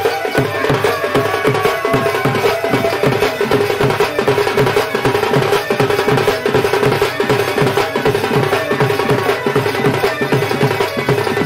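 Sambalpuri Danda Nacha folk music: drums playing a fast, even beat at about four strokes a second, with a held melody line sounding over them.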